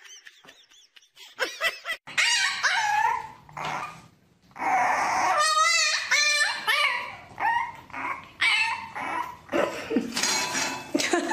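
A puppy yipping and howling in a string of high, wavering calls, starting about two seconds in.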